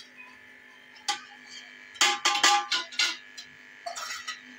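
Sharp metallic clanks against a large aluminium cooking pot while rice is layered into it: one about a second in, a quick cluster of about five near the middle, and a few lighter knocks near the end, each ringing briefly. A steady electrical hum runs underneath.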